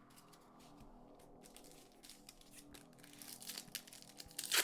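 Foil booster-pack wrapper crinkling and trading cards being handled: faint at first, then a growing run of small crackles in the second half, with the loudest crinkle near the end.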